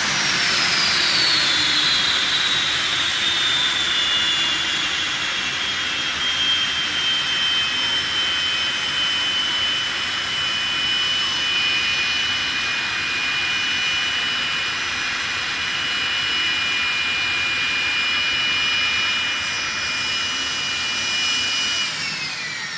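Aircraft jet turbine of a jet-powered dragster spooling down from full power: a high whine falls over the first few seconds, then holds steady at idle for a long stretch, and starts to drop again near the end as the turbine winds down.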